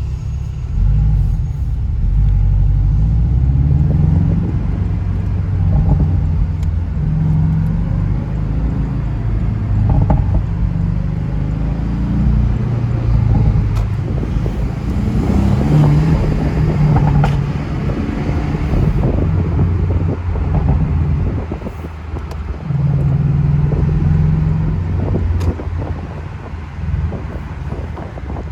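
Porsche 718 Boxster's engine running while driving, a loud low drone whose pitch rises and falls as the car accelerates and eases off.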